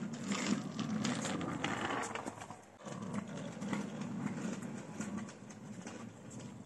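Children's kick scooter rolling over a tiled terrace: a steady rumble of the small wheels with quick clicks as they cross the tile joints. It is louder as it passes close, dips briefly near the middle, then fades as it rolls away.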